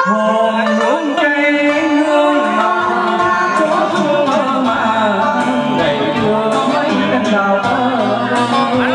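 Background music: a song with a singer over instruments.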